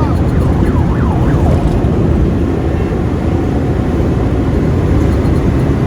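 Steady road and wind noise from a moving vehicle in traffic, with faint rising-and-falling tones in the first second or so.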